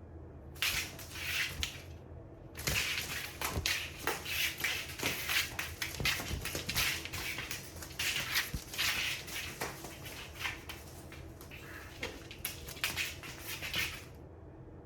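Cats scuffling and rustling as they chase and grab a ribbon toy: a noisy rustle full of small clicks and taps. It starts about half a second in, pauses briefly near two seconds, and stops shortly before the end.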